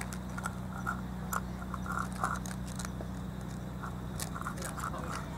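Several cats chewing food from plastic bowls, with irregular crunching clicks over a steady low hum.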